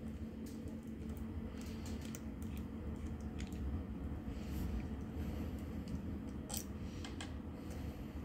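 Small irregular clicks and ticks of a hand screwdriver turning out small screws from the metal rear plate of an RC car chassis, with a few sharper clicks late on, over a steady low hum.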